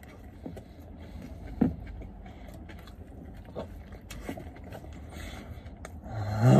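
A man biting into and chewing a juicy burger close to the microphone: faint wet smacks and mouth sounds over a steady low rumble, with a short hum of enjoyment rising near the end.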